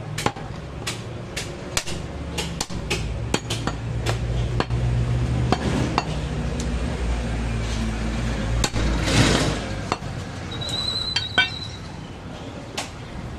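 Butcher's curved knife knocking against a wooden stump chopping block as goat meat is cut: a run of sharp knocks, two or three a second in the first few seconds, then scattered strikes. A low steady hum runs underneath.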